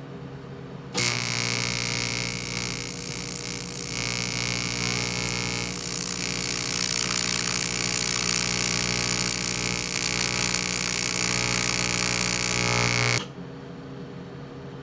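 Miller Econotig TIG welder's AC high-frequency arc on aluminum: a steady harsh buzz with hiss that strikes suddenly about a second in, runs for about twelve seconds and cuts off abruptly when the arc is stopped. The arc is failing to make a liquid aluminum puddle, which the welder is troubleshooting.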